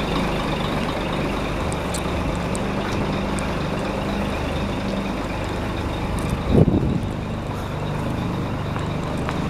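Scania 8x4 tipper truck's diesel engine idling steadily, with a brief louder noise about six and a half seconds in.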